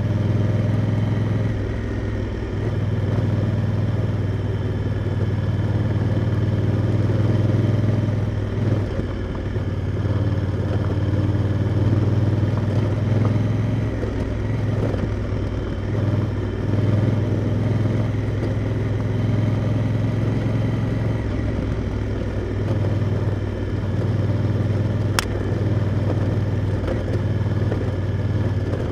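Honda Africa Twin's parallel-twin engine running under way at a fairly steady pace, its note dipping and rising a little with the throttle. A single sharp click near the end.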